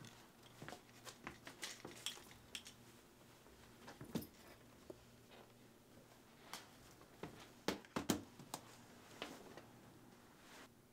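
Scattered light clicks, taps and rustles of small objects being picked up and set down in a quiet room, with a few louder knocks about eight seconds in.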